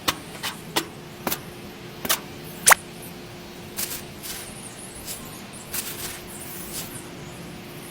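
A series of irregular sharp taps and clicks, about a dozen, the loudest a little under three seconds in, typical of small tools and pieces being handled during a miniature build. Under them runs a faint steady hum.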